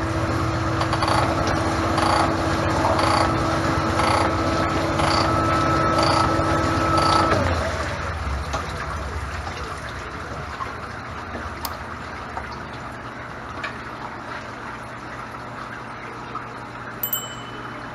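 Cylinder boring machine cutting an engine block with cutting fluid flowing: a steady whine with a regular pulse about once a second, which stops about seven seconds in. A lower, quieter machine hum carries on afterwards.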